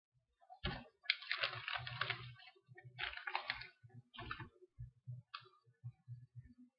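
Clear plastic card-sleeve pages and cards being handled on a table: faint, irregular crinkling and rustling in short bursts, with soft taps and knocks.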